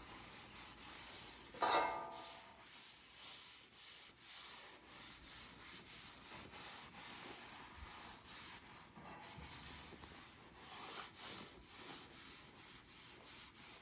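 Faint, irregular rubbing and scraping on the griddle's steel cooktop, as oil is worked across the surface or the griddle is shifted to level it. A brief louder sound comes about two seconds in.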